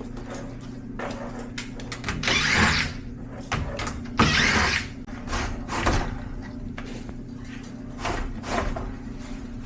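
Sheet-metal parts of an air handler scraping and knocking as it is taken apart: two long scrapes about two and four seconds in, then scattered knocks and clicks. A steady low hum runs underneath.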